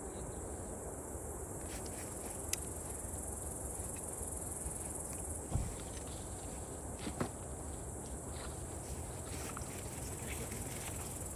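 Insects chirring steadily in the summer grass, a continuous high-pitched buzz. A few light clicks and knocks come from a steel pot being set on a portable gas stove, the loudest about five and a half seconds in.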